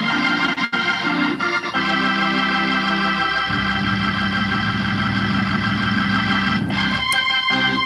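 Organ being played: a few short chords, then a long sustained chord over held bass notes for about five seconds, then short rhythmic chords again near the end.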